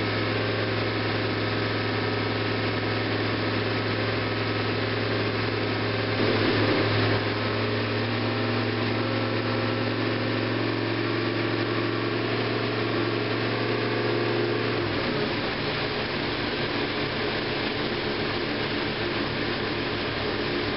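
Freshly rebuilt 402 cubic-inch big-block Chevrolet V8 running steadily on an engine dyno while being warmed up. It is briefly louder about six seconds in, and its steady low note changes about fifteen seconds in.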